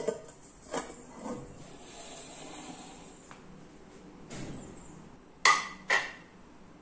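A ceramic plate clinking against the rim of a steel mixing bowl: a sharp clink as it is set over the bowl as a lid, a few light knocks, then two sharp ringing clinks about half a second apart near the end as it is lifted off.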